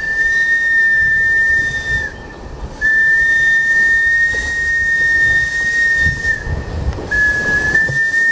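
A train whistle blows three long blasts on a single high, steady note: the first ends about two seconds in, the second runs from about three to six and a half seconds, and the third starts about seven seconds in, slightly flat before it steadies. Under the whistle is the low rumble of the train rolling by.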